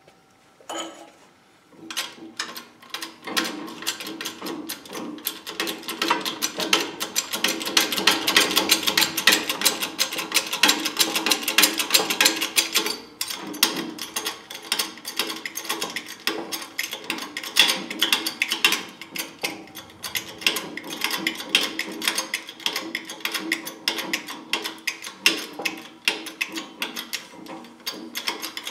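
Hydraulic shop press's pump running as a new bushing is pressed into a GM upper control arm: a fast, rattling mechanical clatter with a steady hum under it, starting about two seconds in and growing louder a few seconds later.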